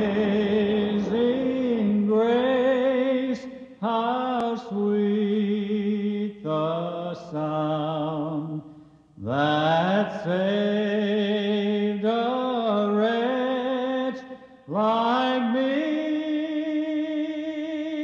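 Voices singing a slow hymn in harmony, in long held phrases with short breaks between them.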